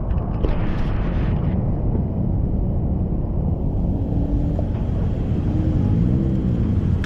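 City street traffic: a steady low rumble of vehicle engines and tyres, with one engine's pitch swelling and then climbing near the end as a vehicle accelerates.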